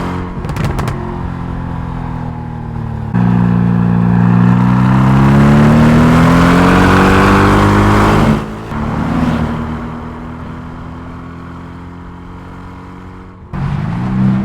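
Mercedes-AMG GT R's twin-turbo V8 under hard acceleration, its pitch climbing steadily for about five seconds before the sound drops off suddenly. It then runs lower and steadier, and near the end comes back sharply with the pitch rising again.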